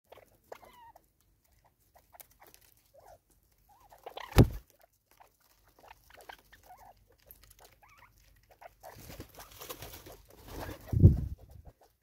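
Natal spurfowl feeding on maize on a wooden stump: light pecking taps and scratches, with a sharp loud thump about four seconds in. Near the end comes a burst of rustling and scuffling with another thump.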